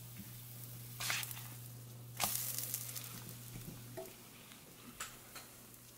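Pancake batter frying in coconut oil in a nonstick pan, a faint steady sizzle. A few short scrapes or knocks of a spatula against the pan cut in, the loudest a little after two seconds, over a steady low hum.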